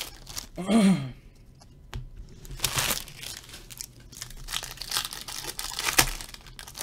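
Trading card pack wrappers being torn open and crinkled by hand, in irregular bursts of crackling, the loudest about three seconds in and again near six seconds.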